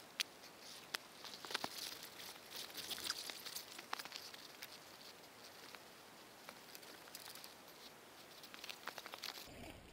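Faint, irregular clicks and crackles of boots shifting in thick mud and hands working at a dirt bike stuck in the mud; the engine is not running.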